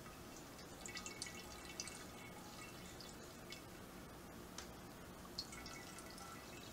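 Wort dripping and trickling faintly from a transfer tube into a glass carboy, with small irregular drip ticks.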